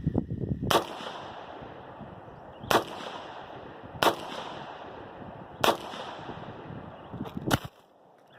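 Five rifle shots from a DB-15 AR-15-pattern carbine with a ported compensator, firing 5.56 green-tip rounds. They are slow, aimed shots about one and a half to two seconds apart, each a sharp crack with a short ringing tail.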